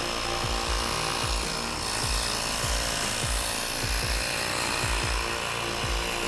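Air pump running steadily, inflating a 20x4 fat tyre, a loud even hiss with a motor hum; it runs on without a break. A steady drum beat from background music plays under it.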